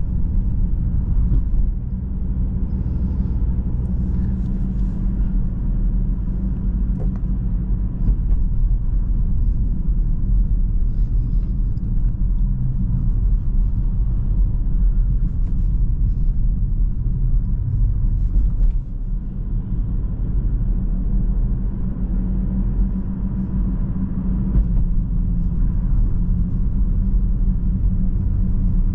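Inside the cabin of a moving 2017 BMW 116d: the low, steady drone of its 1.5-litre three-cylinder turbodiesel pulling the car, mixed with tyre and road noise. The level dips briefly about two-thirds of the way through, then picks up again.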